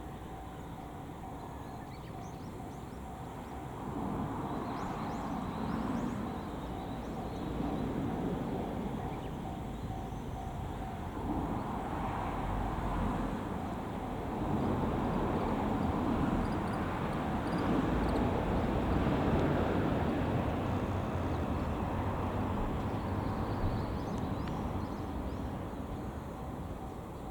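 Train pulling into a station, its running noise swelling from about four seconds in and loudest after about fifteen seconds, then easing slightly as it slows.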